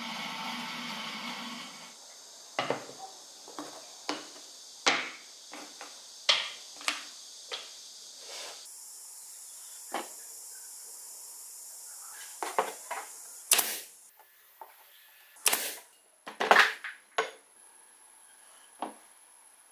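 A table saw runs steadily and cuts off about two seconds in. After that, a series of sharp clacks and taps as small birch plywood blocks and an aluminium T-track are set down and moved about on a workbench, the loudest knocks near the end.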